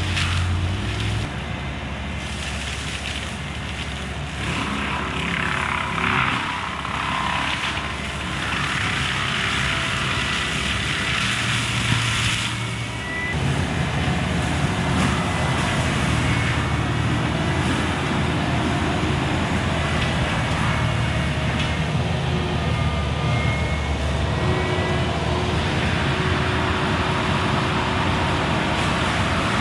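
Kubota skid steer's diesel engine running under load while its Bradco MM60 drum mulcher grinds through brush and saplings. The engine note shifts a couple of times, and a harsher grinding rises for several seconds in the first half.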